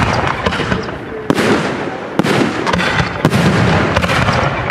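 Aerial firework shells bursting in quick succession: sharp bangs about once a second over a continuous din of further bursts.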